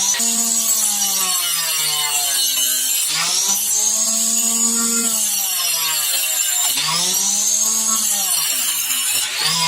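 Homemade circular saw driven by a 12 V 775 DC motor, its 4-inch blade cutting wood. The motor's whine sags in pitch as the blade is pushed into the cut and climbs back up when the load eases, about three times.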